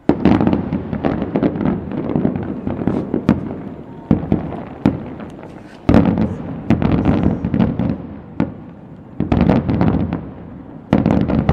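Aerial fireworks display: big shells bursting in quick volleys, each with a sudden boom followed by dense crackling, with fresh volleys about 4, 6, 9 and 11 seconds in.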